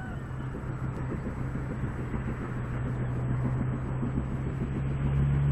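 A steady low engine hum that grows gradually louder, over faint outdoor background noise.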